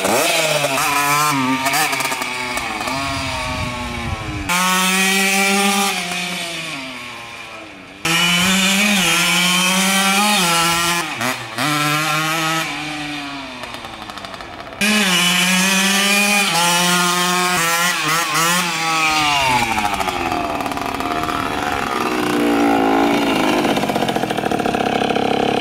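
1983 Honda CR50's 50cc single-cylinder two-stroke engine revving as the bike is ridden, its pitch repeatedly climbing and dropping back, with several sudden jumps in level. The engine is running after ten years without being started.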